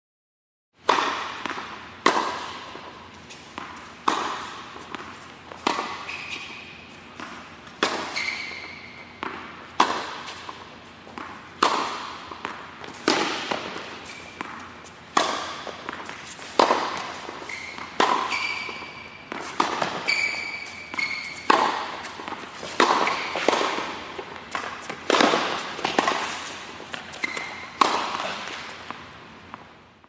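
Tennis rally: a ball is struck by rackets and bounces, with sharp hits every one to two seconds, each trailing off in a short echo. The sound starts about a second in, and the hits come closer together in the second half.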